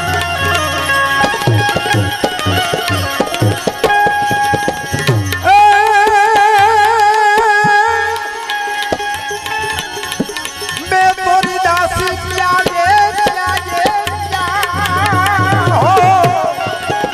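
Instrumental interlude of a Gujarati devotional bhajan: tabla keeping a busy rhythm, its deep strokes bending in pitch. About five seconds in, a held, wavering melody line enters over it.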